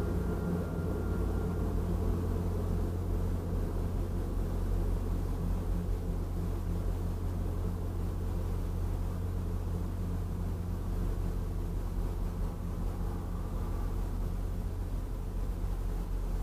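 Steady low rumble and hum of a parked car's engine idling, heard from inside the cabin. A faint thin tone stops about two seconds in.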